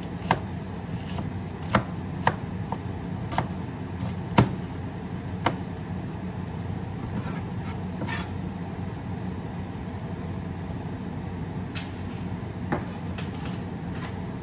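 Knife chopping garlic on a cutting board: irregular sharp strikes, about six in the first five or six seconds and a few more near the end, over a steady low hum.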